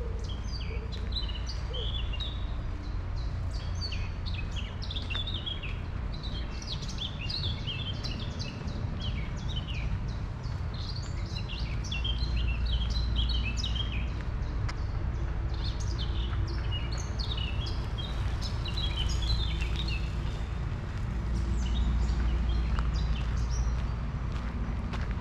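Songbirds chirping and singing in many short, quick phrases over a steady low rumble.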